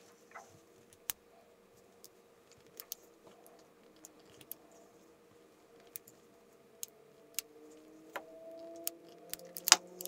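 Small magnetic balls clicking sharply against each other as they are snapped into place: scattered single clicks, coming closer together near the end, where the loudest click falls.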